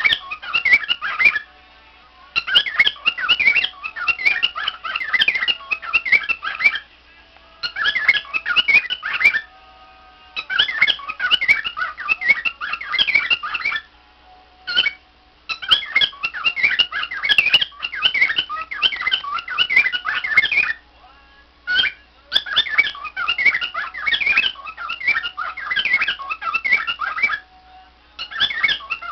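Cockatiel chattering and warbling: rapid runs of chirps and whistles in bouts of a few seconds, with short pauses between.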